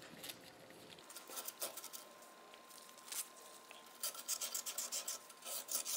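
Emery paper rubbed by hand inside the bore of a Ford power steering gearbox housing, polishing off a ring of rust that a part was getting hung up on. Faint scattered strokes at first, then quick back-and-forth rubbing from about four seconds in.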